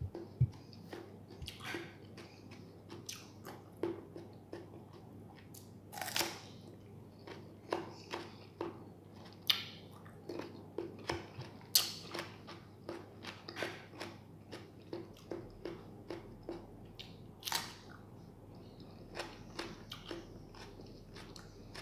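A person biting and chewing crisp raw cucumber: an irregular run of short crunches, several a second, with a few louder bites.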